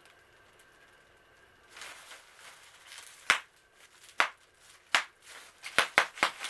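A series of short, sharp clicks, spaced out at first and coming quicker near the end.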